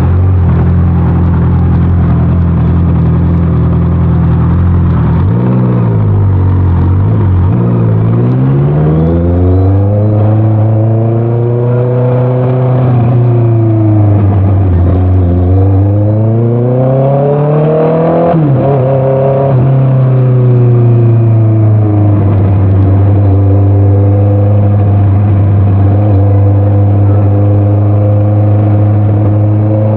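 Honda CBR650R inline-four engine through an Orion aftermarket exhaust, heard on the move. It holds a steady note, its revs dip and then climb twice through the middle, and it settles back to a steady cruising note for the last third.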